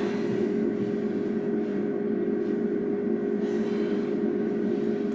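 Steady low droning noise at an even level throughout, with no distinct events.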